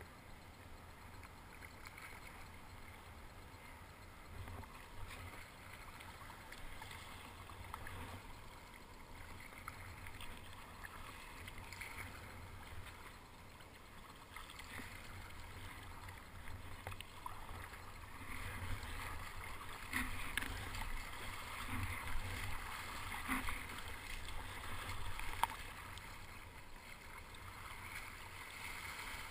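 Kayak paddle strokes splashing and water sloshing around a sit-on-top kayak's hull, with a low rumble throughout. It grows louder and busier past the middle, then eases near the end.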